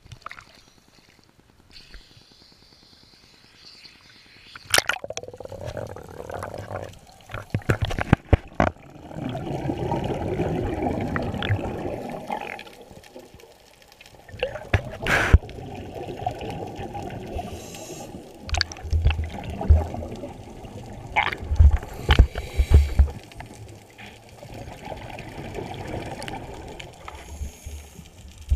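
Scuba diver's exhaled air bubbling out of the regulator, heard underwater through a camera housing: a rush of bubbles every few seconds with each breath, with scattered sharp clicks and knocks.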